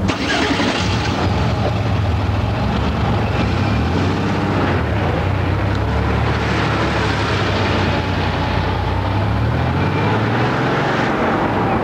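A sports car's engine running as the open-top car drives along the road, with steady road and wind noise; the low engine note shifts in pitch a few times.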